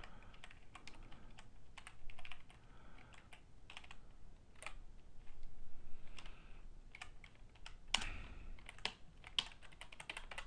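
Typing on a computer keyboard: irregular keystrokes in short runs with pauses between, with a quicker, louder run about eight seconds in.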